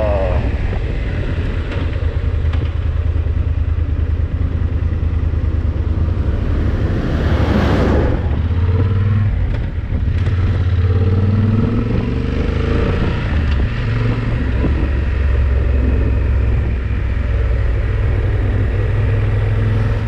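Yamaha XT1200Z Super Ténéré's parallel-twin engine running under way with a steady low drone, over a rushing noise. About seven to eight seconds in, a rushing sound swells and fades.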